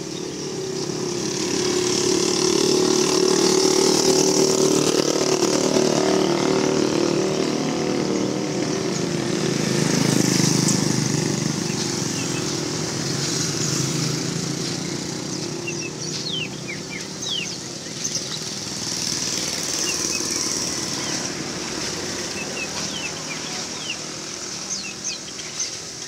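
Small motorcycle engine running close by, loudest in the first half and fading after. Caged birds chirp in short high notes through the second half.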